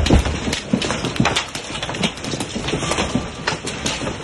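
Hailstones pelting a wooden deck and the ground: a dense, irregular clatter of sharp impacts over a steady hiss of falling hail.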